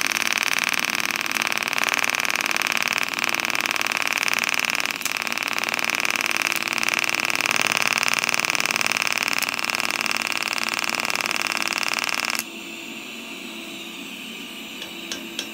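TIG welding arc buzzing steadily while a filler rod is fed into a tube joint on a hand-truck frame. The arc cuts off suddenly about twelve seconds in, followed by a few light clicks near the end.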